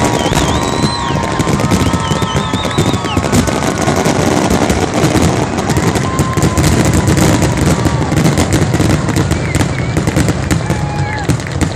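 Fireworks finale: a dense, rapid barrage of overlapping bangs and crackles with no gaps, with high warbling whistles over it in the first few seconds.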